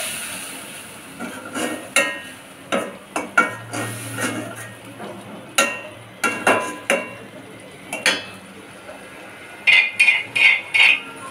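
Cooking utensils knocking and scraping against a stainless steel karahi as a thick masala is stirred, in irregular clinks. Near the end comes a quick run of rasping strokes, about five a second, as a spoon scrapes a perforated steel lid.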